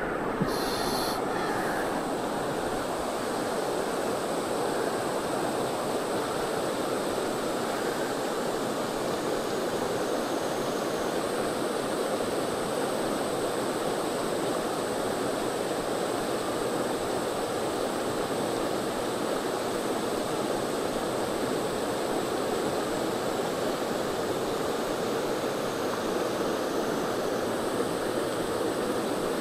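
Shallow river water rushing over stones in a rocky riffle, a steady, even rush.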